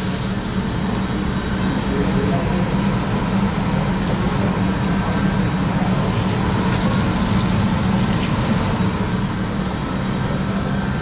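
Steady low hum and rush of a commercial burger kitchen's grill line, its griddle, fryers and ventilation running without a break.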